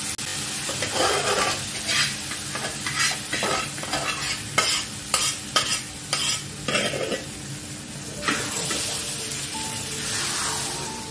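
Pav bhaji mixture sizzling in a pan while being stirred, with a spoon knocking against the pan several times in the middle.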